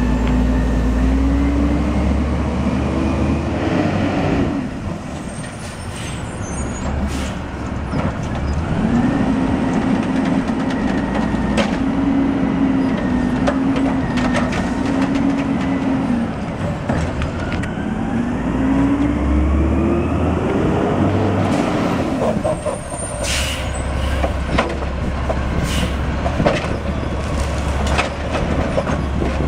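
Automated side-loader garbage trucks picking up carts: the diesel engine revs up and down repeatedly as the hydraulic arm lifts and dumps them, with a whining glide and several sharp bangs and hisses.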